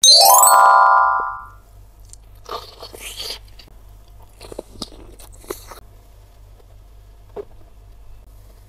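A short synthesized sound effect rising in pitch, the loudest part, fading out by about a second and a half in. Then close-miked bites and chewing of a jumbo bakso meatball, in a few short bursts.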